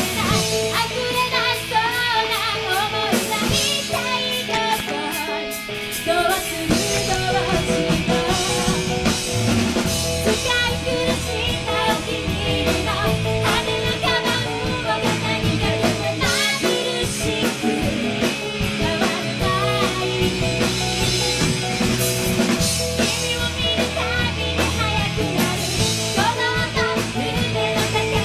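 Background music: a rock song with a singer, drums and guitar.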